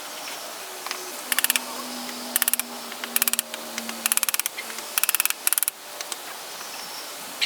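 Short runs of rapid ratcheting clicks, about six bursts of a fraction of a second each, with short gaps between them.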